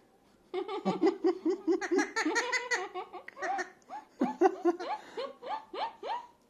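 Pet parrot mimicking human laughter: a fast run of pitched 'ha-ha' syllables, several a second, in bouts with a short break a little past the middle.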